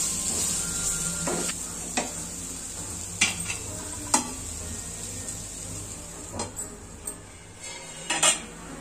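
Wooden spatula stirring and scraping raw banana pieces in a nonstick frying pan, with a few sharp knocks of the spatula against the pan, the loudest near the end. Under it runs the sizzle of frying oil, which fades over the second half.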